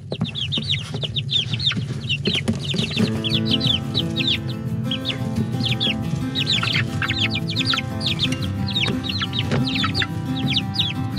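Six-week-old chickens peeping in a brooder: many short falling chirps in quick succession. Background music comes in about three seconds in.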